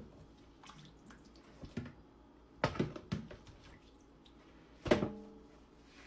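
Water splashing and dripping as raw chicken drumsticks are lifted by hand out of a bowl of washing water, with a few short knocks; the loudest, about five seconds in, rings briefly.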